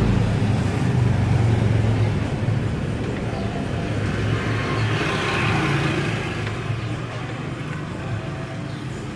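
A motor vehicle's engine running steadily, heard as a low hum that is a little louder in the first half.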